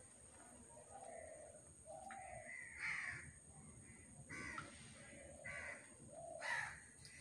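Harsh bird calls, about five in a row roughly a second apart, loudest about three seconds in and again near the end.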